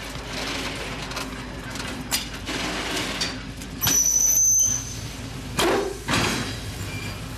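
Rail-yard sounds around freight wagons: a high-pitched metallic squeal of about a second, starting about four seconds in, then two sharp metal clanks, over a steady background rumble.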